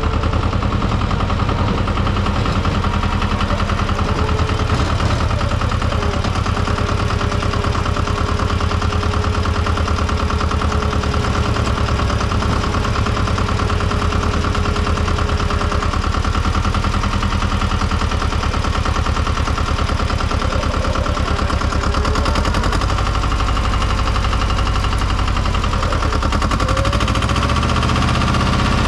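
Tomo Vinković TV 731 small tractor's engine running steadily under load as it pushes snow with its front blade, a rapid, even pulsing.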